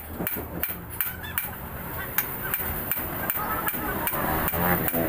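Steady hand-hammer blows on the steel steering knuckle of a truck's I-beam front axle, about three a second, while its king pin and bearing are being replaced. A wavering pitched call rises in pitch near the end.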